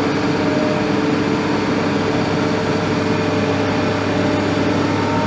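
Diesel engine of a Caterpillar M316D wheeled excavator running steadily during truck loading, a constant hum with several steady tones.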